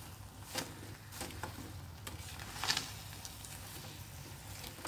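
Spatula stirring grated carrot and sugar in a kadai: irregular scraping strokes against the pan, the loudest a little past halfway, over a faint sizzle. The sugar has just gone in and is melting into the carrot.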